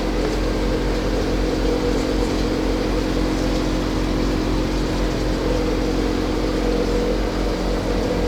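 A steady machine hum with a rushing noise under it, unchanging throughout.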